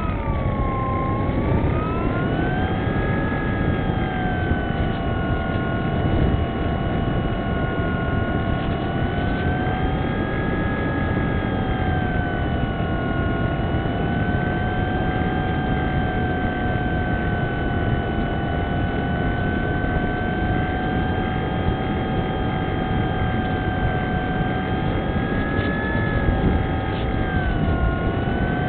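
Onboard recording of a Wing Dragon RC flying wing's motor and propeller, a pitched whine that changes with throttle. The whine drops about a second in, rises again and holds fairly steady with slight wavering, then dips and climbs sharply near the end. A constant rushing noise runs underneath.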